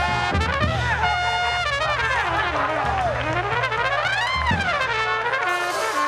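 Background music led by brass, with a melody of notes rising and falling in pitch over a steady low bass.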